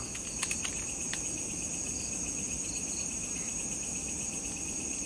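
Steady chorus of night insects: a continuous high trill over a lower, evenly pulsing chirr. A few faint short clicks sound in the first second or so.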